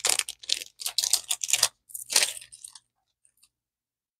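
Small plastic packaging bag crinkling and crackling in the hands as it is opened, a quick run of crackles that dies away after about two and a half seconds.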